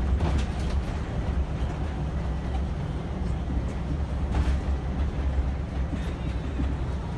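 City bus driving, heard from inside the cabin: a steady low engine and road rumble, with two brief faint clicks or rattles, one just after the start and one about four and a half seconds in.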